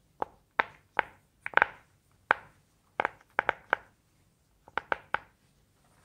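Round silicone push-pop fidget toy having its bubbles pressed one after another: about sixteen sharp pops in an irregular series, some in quick pairs and triples.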